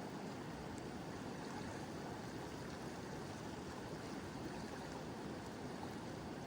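Mountain river flowing, a steady rushing of water with a few faint ticks over it.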